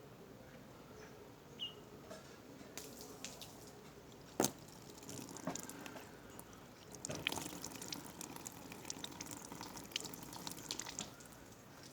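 Water dripping and trickling out of the leaks in a Lister D engine's radiator as it is filled for a leak test, in scattered irregular drips. One sharp click about four and a half seconds in is the loudest sound.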